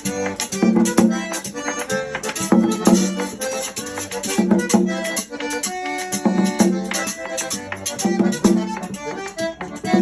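Music with accordion over a steady percussion beat.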